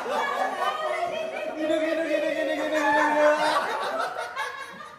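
Lively conversation between several people, with some laughter.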